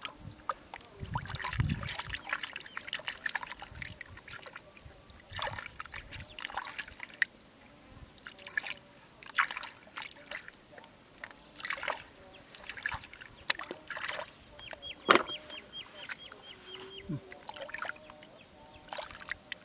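Hands digging and groping through soft wet mud in shallow water: irregular squelches, slaps and sloshes of mud and water, with short trickles as the mud is stirred.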